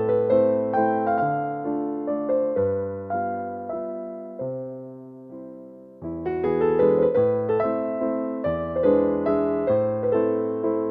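Background piano music: a slow melody of struck notes that fades away about halfway through, then starts again fuller.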